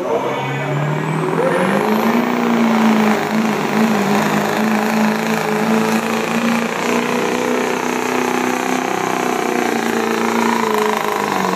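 Diesel pickup truck engine at full throttle, pulling a weight-transfer sled. It revs up over the first two seconds, with a high whistle climbing alongside. It then holds high revs under load, steady and loud, sagging slightly near the end.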